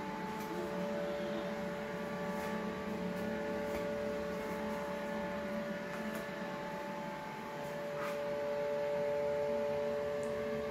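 Steady machine hum made of a few fixed pitches, with a few faint clicks over it.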